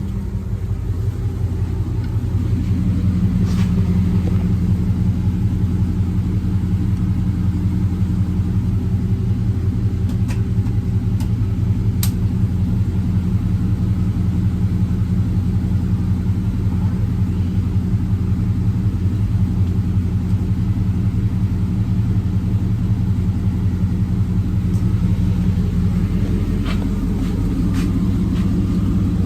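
Car engine idling steadily, a low even rumble, with a few faint clicks over it.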